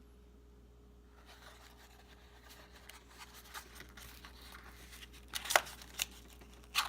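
Rustling and crinkling of handling, with several sharp clicks about five seconds in and again near the end, as Glock 43 magazine parts and Strike Industries extended base plates are handled.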